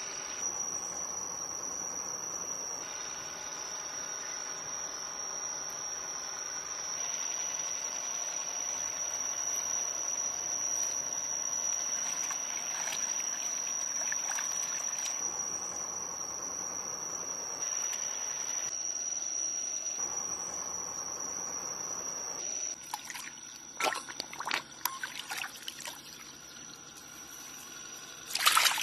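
Muddy ditch water trickling and sloshing, with a steady high-pitched whine underneath. Near the end come several sharp splashes and one loud splash as a large fish thrashes in the shallow water of a bamboo-stake trap.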